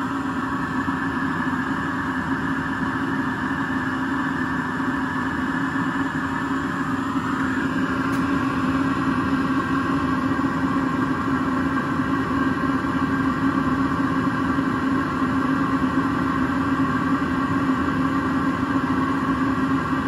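Eberspächer D1LC diesel air heater running steadily at full heat, its fan motor humming over the burner's combustion. The tone shifts slightly about seven and a half seconds in.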